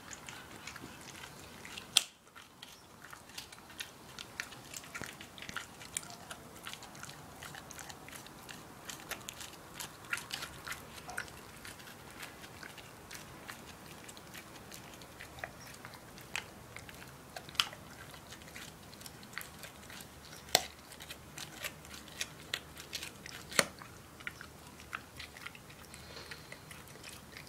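Staffordshire bull terrier cross chewing a rawhide bone: an irregular, continuous run of crunching and clicking from her teeth on the hide, with a few much louder sharp cracks.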